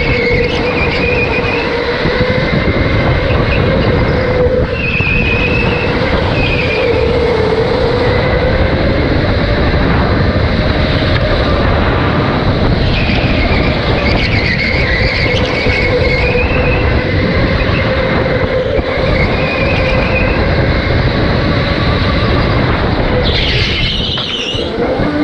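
Electric go-kart driven hard on a smooth concrete track: a steady whine from its electric motor over a dense rumble of tires and chassis, with short high tire squeals through the corners every few seconds.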